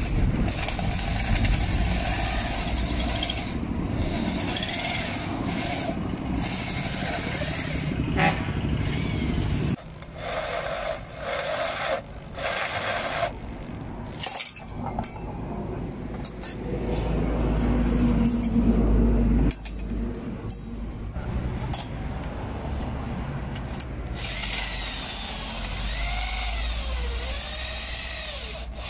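Corded electric hand drill boring through flat steel bar. It runs steadily for about ten seconds, then in short starts and stops, then a long run, and near the end the motor's pitch rises and falls.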